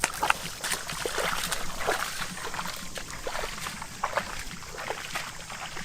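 Shallow water splashing and sloshing in irregular small strokes, as in wading or handling a catch in a flooded field.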